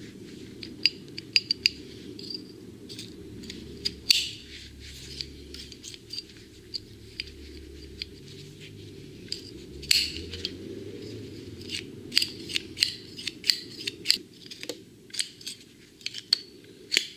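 Restored steel snap hook worked in the hand: many sharp, irregular metallic clicks and snaps as its spring-loaded gate and locking lever are pressed open and let spring shut.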